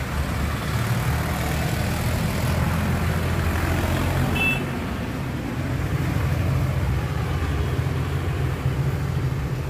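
Steady low rumble of background traffic noise, with one short high beep about four and a half seconds in.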